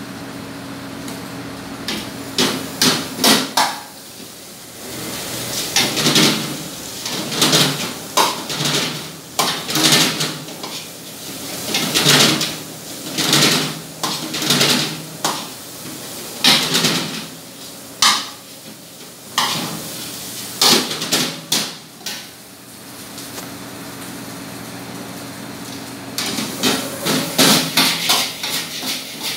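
Metal ladle clanging and scraping against a steel wok as fried rice is tossed over a gas burner, in irregular bursts of knocks, with a steady low hum underneath. The clatter pauses briefly early on and again for a few seconds near the end, then resumes.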